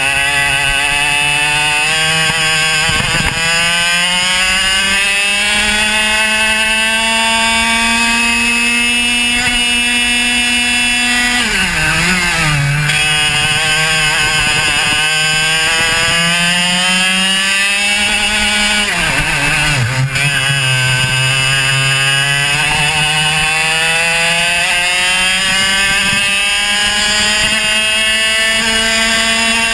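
Racing kart's two-stroke engine under full throttle, its revs climbing steadily in long pulls. The revs drop sharply twice as the driver lifts off for corners, then climb again.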